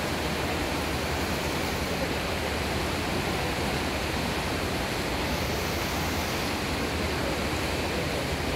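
Steady rushing wash of splashing water from several swimmers swimming butterfly down the pool.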